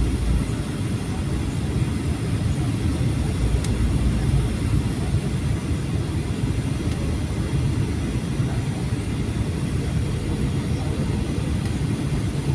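Steady low rumble of airflow and jet engines heard inside the cabin of a Boeing 737-800 flying low on approach.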